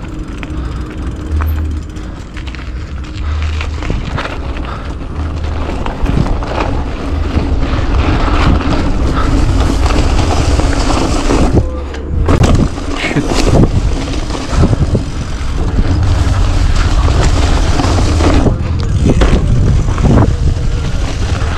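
Wind rumbling on an action camera's microphone as a mountain bike rides over bumpy grass, with the bike rattling and knocking over the ground; the sharpest knocks come about twelve seconds in and again near the end.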